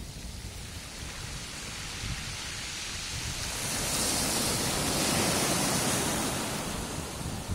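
Small waves breaking and washing up a pebble beach: a steady hiss that swells to its loudest about halfway through, then eases off.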